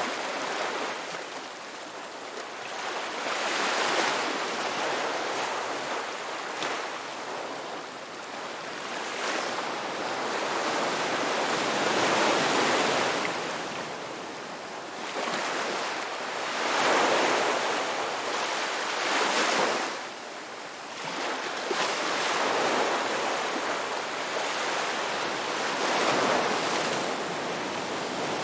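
Ocean waves breaking and washing up a rocky beach, the surf swelling and falling back every few seconds in an uneven rhythm.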